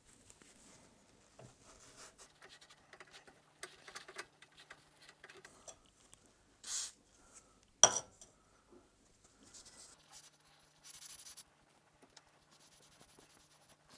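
Hand-cleaning of metal lathe chuck parts: soft rubbing and scrubbing with small scrapes and clicks, and one sharp ringing metal clink about eight seconds in. Two short hisses come just before the clink and again about three seconds after it.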